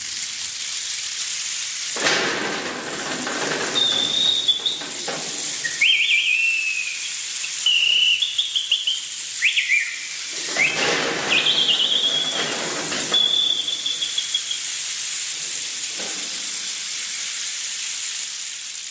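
A steady loud hiss, with a series of short high whistled chirps, some gliding up in pitch, from about four to fifteen seconds in.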